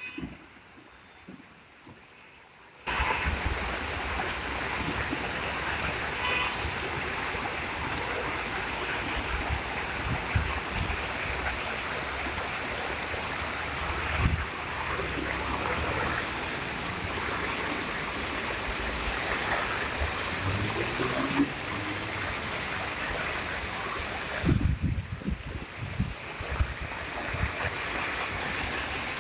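Heavy rain and rainwater running in a steady rush as it cascades down a long flight of stone steps. The rush comes in abruptly about three seconds in, and a few low knocks come near the end.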